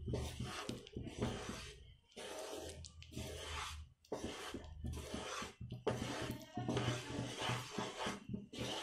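Wooden spatula scraping and stirring a thick wheat-flour Mysore pak mixture in a nonstick pan, in repeated strokes with short pauses between them.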